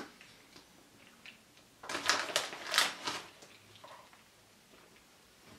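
Plastic bag of grated cheese crinkling and rustling as it is handled, a short cluster of crackles about two seconds in, with faint scattered rustles around it.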